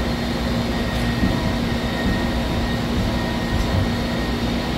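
Gildemeister Twin 65 CNC turning and milling center running with its tailstock traversing: a steady machine hum with a constant low tone and a fainter high whine.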